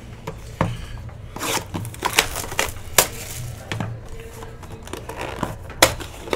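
Hands handling a trading-card hobby box and a foil-wrapped card pack: irregular taps, clicks and crinkling rustles, with a couple of sharper taps about three seconds in and near the end.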